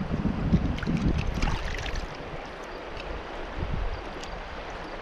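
River water rushing steadily, with a low rumble on the microphone and a few light ticks for about the first two seconds.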